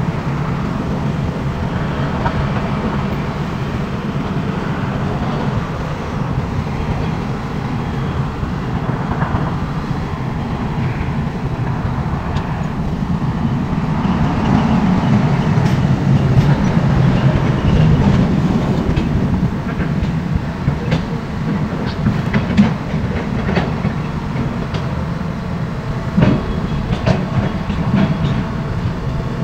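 SANY hydraulic excavator's diesel engine running steadily under load, swelling louder about halfway through, with scattered sharp metal knocks in the second half.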